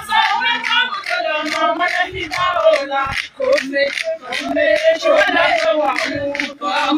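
A group of people singing a chant together, with a sharp beat about two to three times a second.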